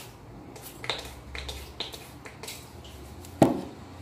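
Small pump spray bottle spritzing hair tonic onto the scalp: a few short, clicking sprays spread over the seconds, with one louder dull thump about three and a half seconds in.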